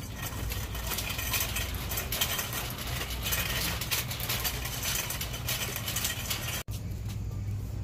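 Steady low hum of a shop's ventilation and refrigeration, with rustling and small clicks from walking and handling the phone. The sound drops out for an instant near the end.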